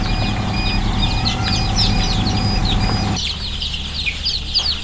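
Newly hatched chicks peeping: many quick, high, overlapping chirps. Beneath them is the steady hum of the incubator machine, which cuts out about three seconds in.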